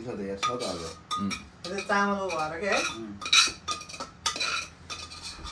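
A metal utensil scraping and clinking against a nonstick frying pan held tipped over a pot, a string of sharp clinks and knocks. A voice sounds briefly twice, near the start and about two seconds in.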